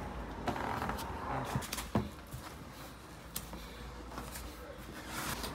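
Quiet workroom ambience with a few light knocks and taps, the sharpest about two seconds in.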